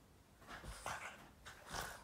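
A Boston terrier making short, breathy play noises, three in quick succession.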